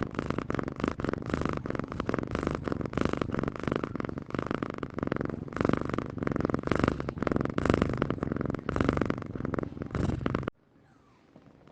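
Domestic cat purring close up: a steady, rasping purr that swells and fades in rough pulses. It cuts off suddenly about ten and a half seconds in, leaving near silence.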